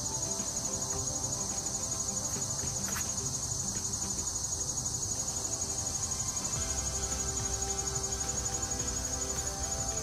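Steady, high-pitched insect chorus, a fast pulsing trill that keeps going without a break.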